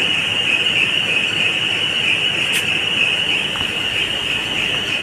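A loud, steady high-pitched whine over a noisy hiss that cuts off abruptly at the end.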